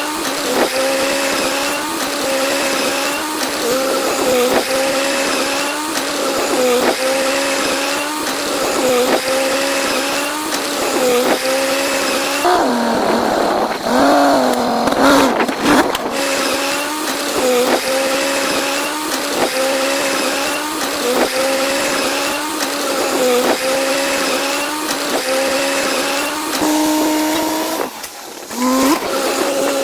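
An excavator running with a steady motor whine as it works, its pitch dipping briefly about every second and a half.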